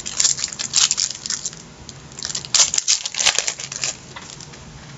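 A pack of Allen & Ginter baseball cards being handled, crinkling and rustling in two spells: one at the start and another around the middle.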